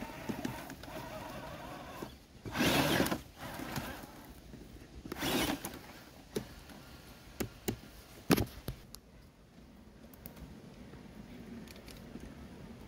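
Traxxas TRX-4 electric RC crawler truck driving over the forest floor in two short bursts, its motor running while the tyres crunch through leaves and twigs, then a few sharp clicks and knocks.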